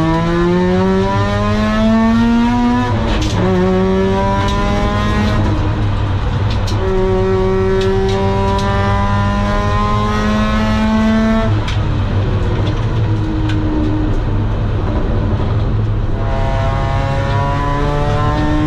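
Mazda RX-8's two-rotor Wankel engine, with a home-made long-tube exhaust and Borla silencer, under full throttle. Its pitch climbs steadily through each gear and drops at gear changes about three, twelve and sixteen seconds in.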